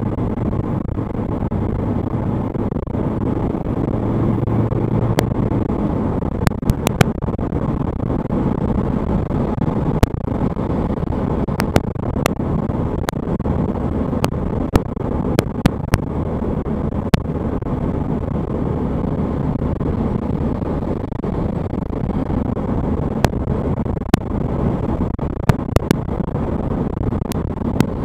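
A car driving along a paved road, heard from inside the cabin: a steady low rumble of engine and tyre noise. Scattered sharp clicks occur at irregular moments.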